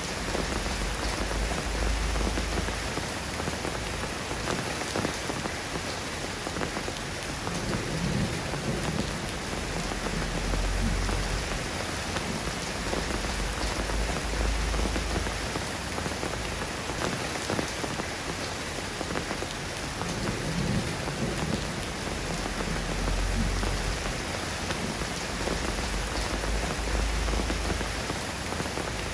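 Steady rain falling, an even hiss of drops, with a deep low rumble swelling up and fading every several seconds.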